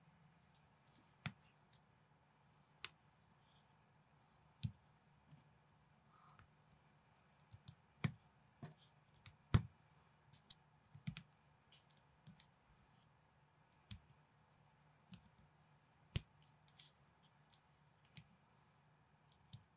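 LEGO-compatible plastic bricks clicking as they are snapped together and handled: irregular sharp clicks every second or so, over a faint low hum.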